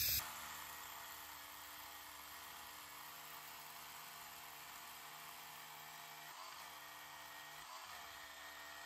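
Cordless hammer drill with a 14 mm masonry bit boring a bolt hole into a concrete slab. The motor runs with a steady, fairly faint whine, and its pitch dips briefly a couple of times in the second half.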